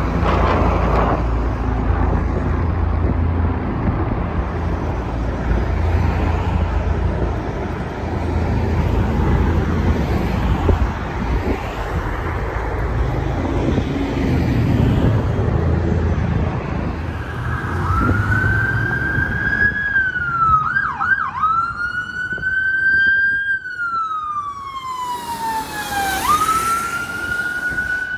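Helicopter flying overhead, a steady low rotor and engine rumble. About two-thirds of the way in, a police car's electronic siren starts: a high wail that holds, dips in quick yelps, then slides down slowly and jumps back up, with a brief hiss near the end.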